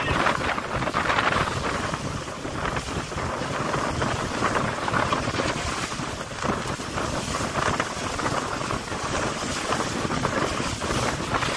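Wind noise on the microphone over the rush and splash of choppy water along the hull of a small fishing boat under way: an uneven noise that swells and eases every second or so.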